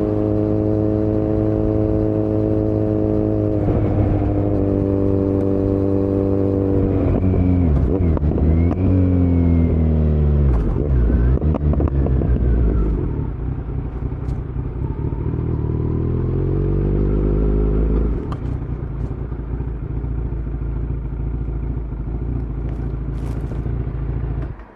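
2018 Kawasaki Z900 inline-four running through a Yoshimura muffler and Delkevic headers with no dB killer, heard from the rider's seat. It holds a steady note, falls in pitch through several drops about a third of the way in, climbs again, then falls away to a low steady note and cuts off suddenly.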